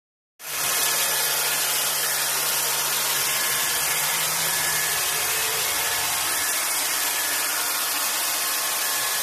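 Robot vacuum cleaner running on a hard floor: a steady whir of its suction motor with a strong hiss. It starts abruptly about half a second in and holds level throughout.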